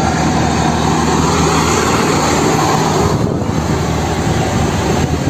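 Diesel fuel tanker truck driving past on a road, its engine running steadily under a wash of tyre and traffic noise.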